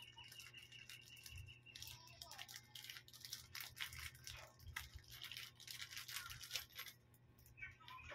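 Faint crinkling and tearing of plastic packaging handled by hand as the solar light is unwrapped, in a dense run of quick rustles that thins out near the end. A thin steady high tone sounds in the first two seconds.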